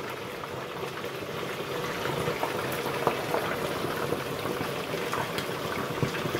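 Chicken wings deep-frying in hot oil inside a closed De'Longhi deep fryer: a steady bubbling sizzle with scattered small crackles, the vigorous boil of wings freshly lowered into the oil.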